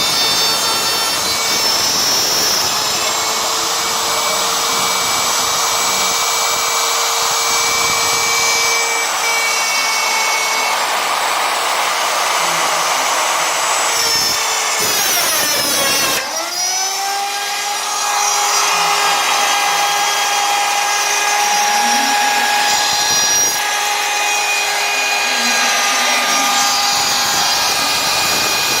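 CNC machine running under power, a steady motor whine over a rough cutting noise. About halfway through, the whine dips sharply in pitch and then settles at a new steady pitch, as the spindle speed changes.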